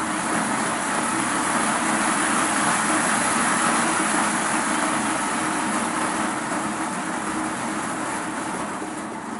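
Electric motor and gear drive of a DCC model steam locomotive running flat out on a rolling road: a steady whirring that eases off over the last few seconds as the throttle is turned down.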